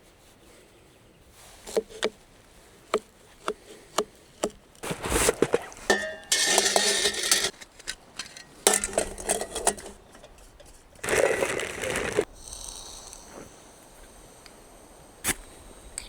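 Camp cooking gear being handled: a string of sharp clicks and knocks, with two louder stretches of noise about a second long each, one a few seconds in and one after the middle.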